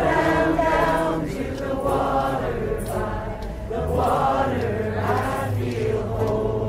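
A crowd singing a song's chorus together, voices rising and falling in long sung phrases.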